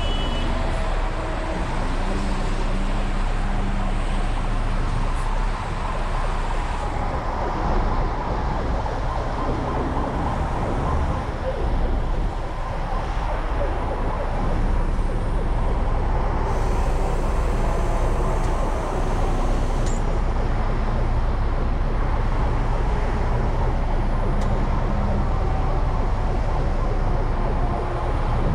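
Large diesel engine running steadily at a constant low hum, with road noise around it.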